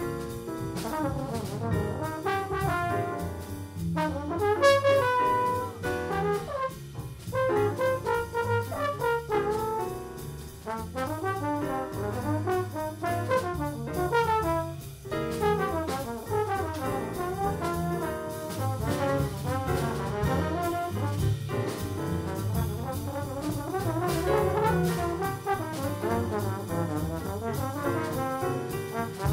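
Live small jazz combo: a trombone carries a fast-moving solo line over piano, plucked upright bass and drums.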